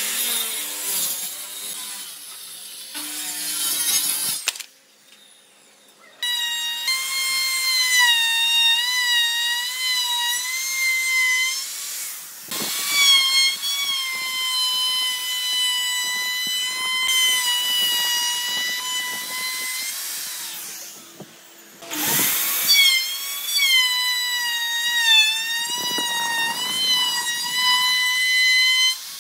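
Power tool working wood: a high motor whine that wavers in pitch as it is loaded. It runs for about fourteen seconds, drops off, and starts again a couple of seconds later after a noisy start.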